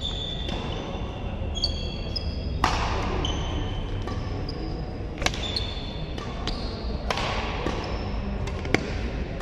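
Badminton singles rally: sharp smacks of rackets hitting the shuttlecock every two seconds or so, mixed with short high squeaks of players' shoes on the synthetic court mat.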